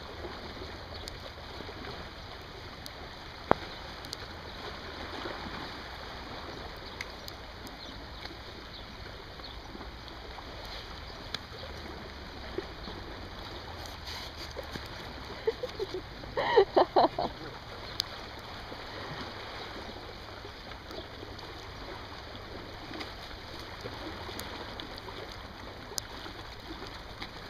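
Small waves lapping and washing against a rocky lakeshore embankment in a steady wash. About two-thirds of the way through, a person's voice breaks in briefly.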